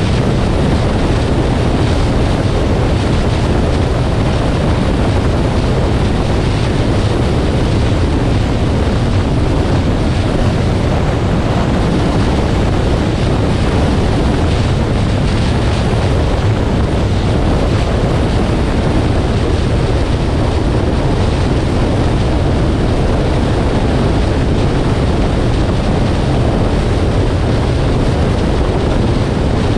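Steady wind and road noise from a 2018 Nissan Armada on the move, an even rushing with no changes or distinct events.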